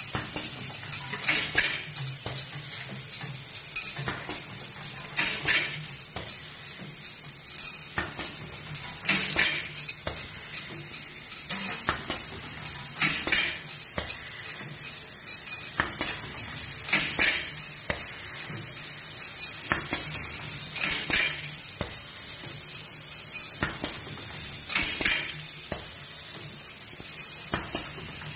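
Glass measuring-pipette forming machine running: rattling metal-and-glass clinks recur every second or two, with heavier clatter about every four seconds. Under them run a steady high hiss and a low hum.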